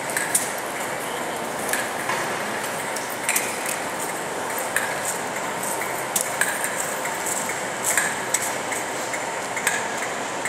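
Class 57 diesel locomotive's EMD two-stroke engine running with a steady hum. Sharp metallic pings or clicks sound irregularly, about once a second.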